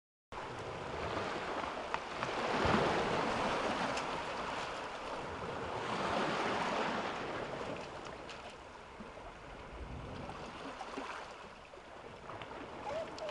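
Small waves breaking and washing over rocks and pebbles at the water's edge, swelling twice in the first seven seconds and then settling to a quieter wash.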